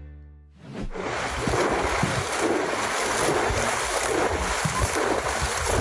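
Background music fades out in the first second, then ocean waves wash and break steadily, with wind buffeting the microphone.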